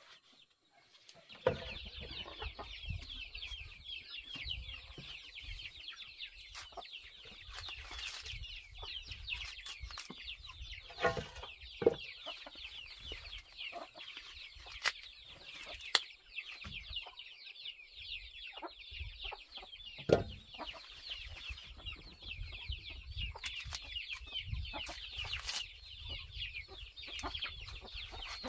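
Fresh green ears of corn being husked by hand: the leafy husks tear and rustle in sharp, irregular bursts. Behind them a steady, dense high-pitched chirping runs throughout, beginning about a second in.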